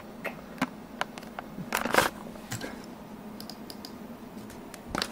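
Irregular light clicks and taps on a computer keyboard, with a quick cluster about two seconds in, over a faint steady hum.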